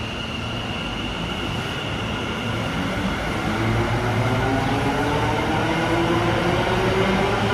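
Ahmedabad Metro three-car Hyundai Rotem electric train pulling out of the station. Its traction motors whine, several tones rising in pitch from about three seconds in as it gathers speed, over a rumble that grows louder.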